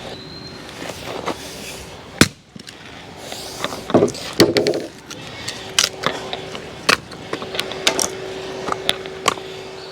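Objects being handled: a scattered series of sharp knocks, clicks and clatter, with a small cluster about four seconds in, over a faint steady hum.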